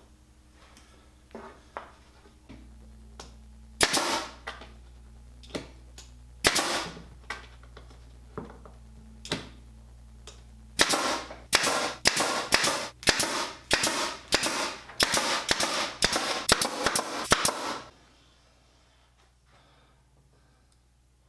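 Pneumatic brad nailer firing nails into wood, each shot a sharp pop with a short hiss: a few single shots spaced seconds apart, then a quick run of about a dozen, roughly two a second, that stops about three-quarters of the way through.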